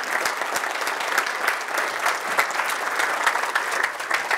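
Audience applauding: many hands clapping, holding at a steady level.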